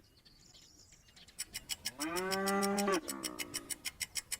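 A cow moos once, a single call lasting about a second, about two seconds in. A fast, even ticking starts shortly before the moo and keeps going after it.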